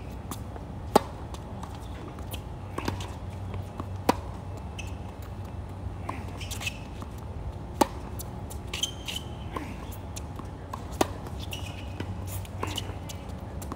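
Tennis rally on a hard court: sharp pops of rackets striking the ball every few seconds, the loudest about a second in and again near eight seconds, with quieter ball bounces and shuffling footsteps between.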